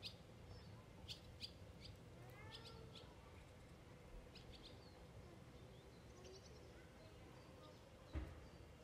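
Faint birds chirping: short, scattered calls and a few gliding notes over quiet outdoor background. A soft low thump about eight seconds in.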